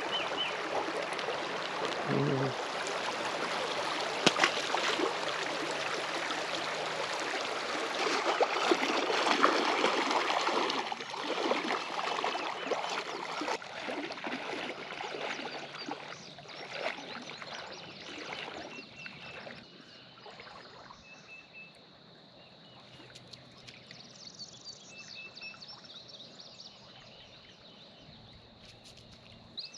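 Creek water running, with irregular splashing and sloshing for the first fifteen seconds or so that then dies away, leaving a quieter steady trickle of the stream.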